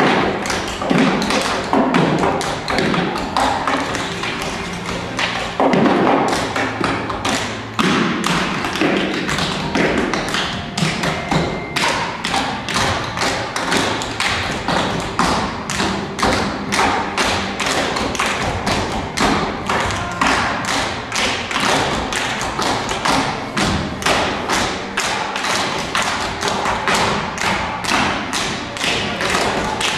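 Dancers' feet tapping and stomping in a quick, dense rhythm on the stage floor and on box props, over music.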